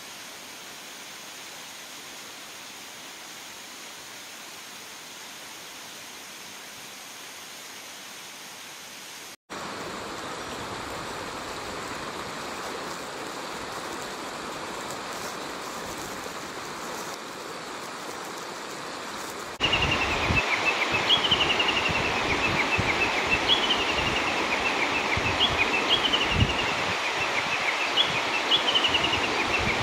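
Mountain stream rushing steadily, growing louder in two sudden steps. From about two-thirds of the way in, a Japanese bush warbler gives its valley-crossing call (tani-watari), a long run of quick short notes that fall in pitch and start high again, over and over.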